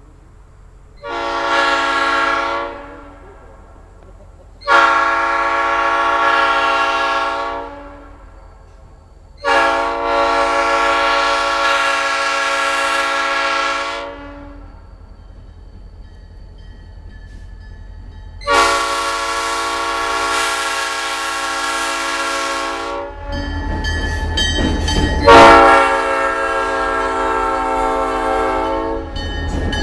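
Old cast Nathan P5 five-chime locomotive air horn blown in five blasts, sounding a steady multi-note chord. The first blast is short, about a second in, and the next four last three to five seconds each. A low rumble runs under the last and loudest blast.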